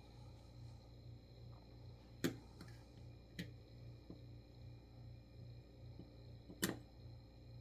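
A handful of sharp taps or clicks over a faint steady low hum, the loudest about two seconds in and again near the end.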